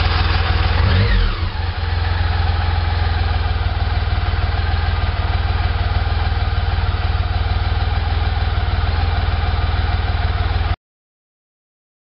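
BMW K75 motorcycle's three-cylinder engine just after starting: it runs at raised revs that drop away within the first two seconds, then settles into a steady idle. The sound cuts off suddenly near the end.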